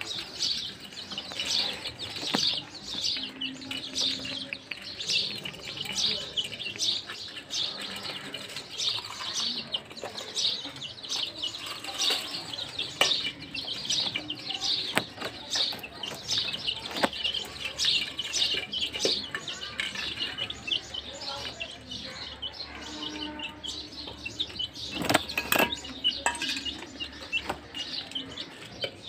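A group of young chicks peeping continuously, many short high peeps overlapping. A few sharp clicks cut through, loudest about 25 seconds in.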